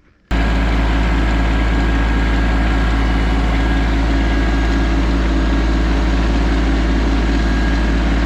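Tractor engine running at a steady speed, heard loud and close. It cuts in abruptly just after the start and holds unchanged throughout.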